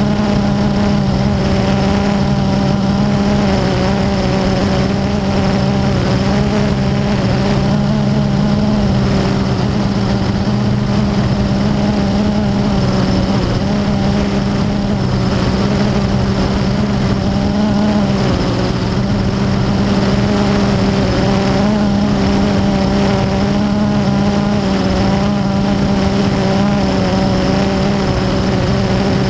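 Blade 350 QX quadcopter's electric motors and propellers hovering and flying with a steady, multi-toned hum, recorded by a GoPro mounted on the airframe. The higher tones waver slightly as the motors adjust speed.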